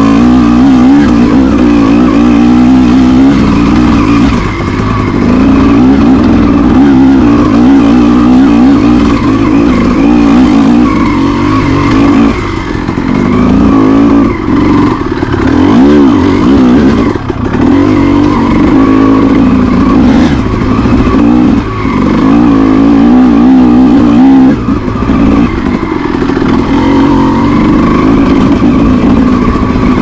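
Honda CR250R two-stroke single-cylinder dirt bike engine being ridden, its revs constantly rising and falling with the throttle. The revs dip briefly several times along the way.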